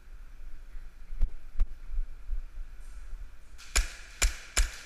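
KWA USP .45 gas-blowback airsoft pistol firing three quick shots about half a second apart near the end, each a sharp crack. Two fainter clicks come about a second in.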